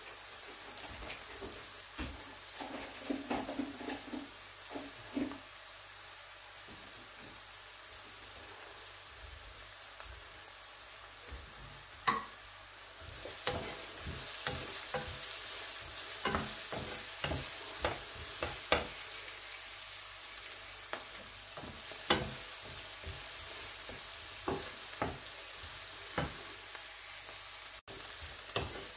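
Chopped onions sizzling in hot oil in a frying pan, getting louder about halfway through. A wooden spoon stirring them knocks and scrapes against the pan.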